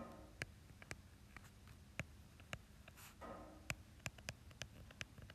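Stylus tip tapping and clicking on an iPad's glass screen during handwriting: a dozen or so sharp little taps at an irregular pace, a few per second, faint overall.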